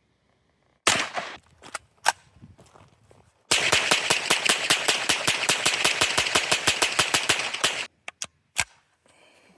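Gunfire: a few single sharp cracks, then a long burst of rapid automatic fire at about nine shots a second lasting about four seconds, then a few more single cracks.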